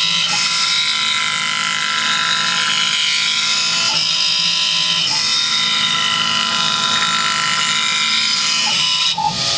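Small CNC milling machine cutting packaging plastic: the spindle's steady high whine mixed with the noise of the end mill cutting, with a short dip in the sound near the end.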